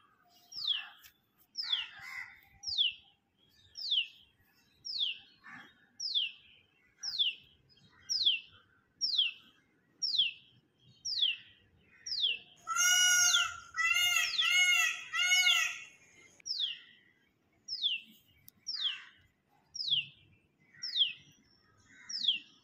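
A bird repeating one short, high whistled note that falls in pitch, about once a second. About halfway through, a louder run of four arched calls breaks in over it.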